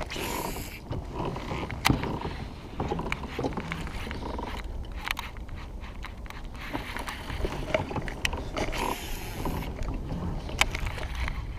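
Fishing kayak on the water: a low steady rumble with scattered small clicks and knocks of gear on the hull, and two short hissing bursts, one at the start and one about nine seconds in.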